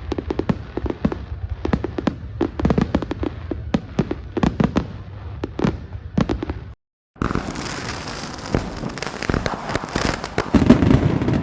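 Fireworks display going off: a rapid, irregular run of sharp bangs and cracks. After a brief dropout about two-thirds through, the bursts come denser as crackling, with the loudest bangs near the end.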